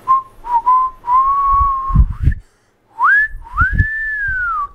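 A person whistling a slow tune: held notes at one pitch, then a rising swoop into a long arching note that falls away near the end. A few low thuds sound underneath.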